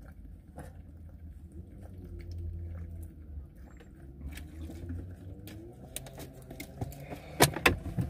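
Water being gulped from plastic water bottles, with small swallowing and bottle-crinkle clicks over a low steady hum. A couple of sharp loud clicks come near the end.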